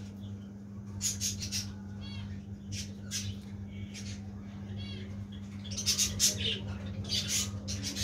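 Budgerigars chirping and chattering in short sharp bursts with a few warbled notes, busiest in the last few seconds, over a steady low hum.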